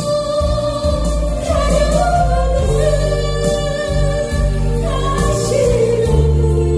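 A woman singing a Korean trot song into a microphone over music accompaniment, holding long notes over a steady bass line.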